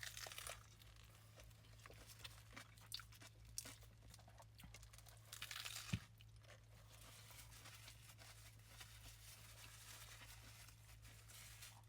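Faint chewing and crunching of a lettuce-wrapped burger, with a louder burst of crunching about five to six seconds in, over a low steady hum.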